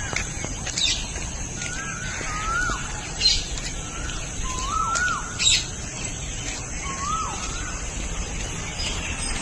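Birds calling: a clear call that rises and then falls, repeated about six times at intervals of a second or so, with a few short, sharp higher chirps in between.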